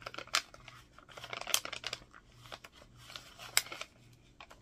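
Rustling and crinkling of a vellum sticker bag and its sticker sheets being handled and opened, with a few sharper crackles.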